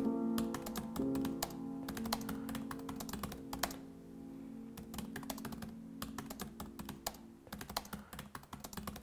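Irregular typing keystrokes clicking throughout, over soft background music of held chords that gradually fade away.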